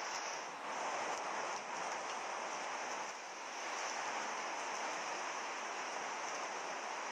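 Colored pencil scratching on paper in continuous shading strokes, a steady hissing rasp.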